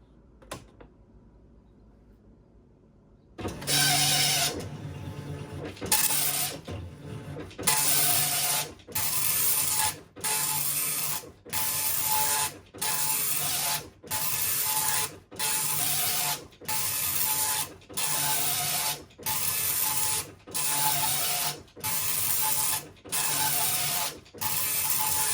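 Commodore MPP-1361 dot-matrix printer, with its 3D-printed replacement platen gears, printing. After about three seconds of quiet it starts with one long pass, then prints line after line: a burst about a second long every 1.2 seconds or so, with a short pause between.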